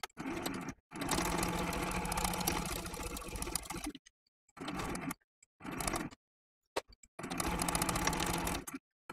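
Domestic sewing machine stitching in short runs, stopping and starting several times, with the longest run lasting about three seconds.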